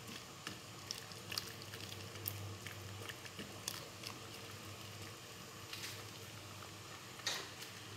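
Shrimp and vegetable broth heating toward the boil in a pan, a faint steady hiss under scattered light clicks and scrapes of a slotted wooden spatula stirring the vegetables.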